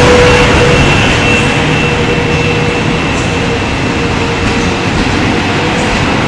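PKP Intercity passenger coaches rolling past along the platform: a steady rumble of wheels on rails, with a steady hum and a faint high whine over it.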